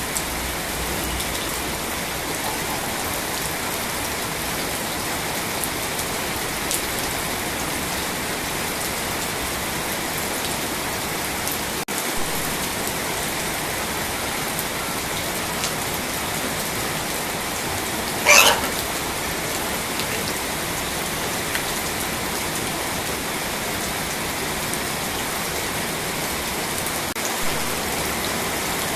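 Steady hissing noise like rain falling, with a short high-pitched sweep about eighteen seconds in.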